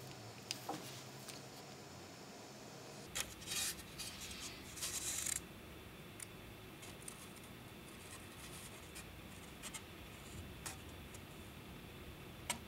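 Quiet wood-on-wood handling: a thin plywood panel being set onto a glued wooden tray frame and slid into place, with two short scrapes about three and five seconds in and light taps and clicks between them.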